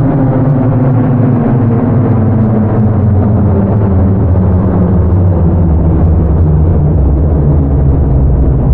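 Federal Signal Thunderbolt 1003 outdoor warning siren, time-stretched so it sounds slowed down. It is a loud, deep, steady tone with several pitches stacked together, sinking slowly in pitch.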